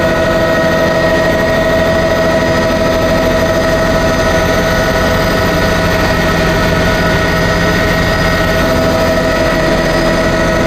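Helicopter in flight heard from inside the cabin: steady engine and rotor noise with a constant whining tone over it.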